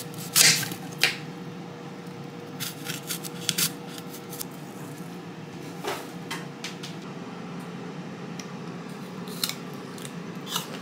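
Kitchen knife cutting a firm apple into slices: a series of short, crisp crunching cuts and knife taps at irregular intervals, then a crunchy bite into a slice near the end.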